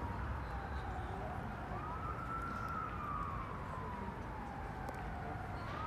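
Emergency-vehicle siren wailing: a single tone rises quickly and falls slowly, about every four seconds, over a low steady rumble of city background.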